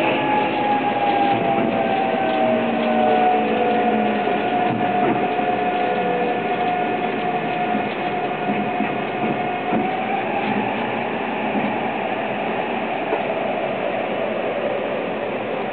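Electric train's inverter-driven traction motors whining in several tones that fall slowly in pitch over the running noise of the car, as the train brakes into a station; the whine fades about ten seconds in as the train nears a stop.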